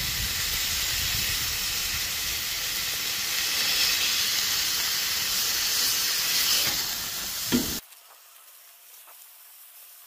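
A ground-beef patty sizzling steadily on a hot Blackstone flat-top griddle while it is held smashed flat under a metal burger press. The sizzle drops away abruptly near the end, leaving only a faint hiss.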